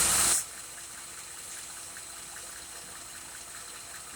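A 3.6-litre engine running at idle, a steady rushing hum with a faint, irregular light ticking, which the owner says shakes like a misfire. A loud burst of noise fills the first half-second.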